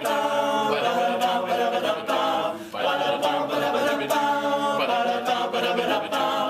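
All-male a cappella group singing in close harmony, several voices holding chords that change together, with a few sharp percussive hits.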